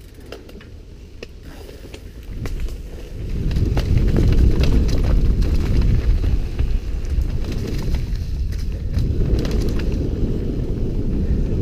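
Downhill mountain bike riding down a dry dirt trail, heard from a helmet camera: tyres on loose dirt with sharp clicks and rattles from the bike, and a heavy wind rumble on the microphone that builds about three seconds in as speed picks up.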